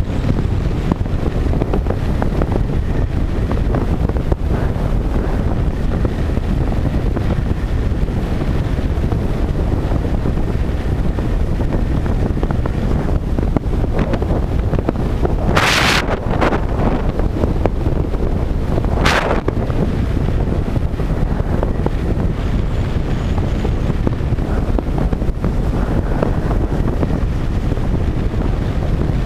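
Heavy wind buffeting the microphone of a moving motorcycle at road speed: a steady low rumble. Two short sharp noises cut through, about halfway in and again about three seconds later.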